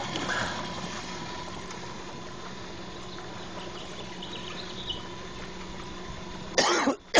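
A small motor hums steadily at a constant pitch. Near the end come two short, loud bursts.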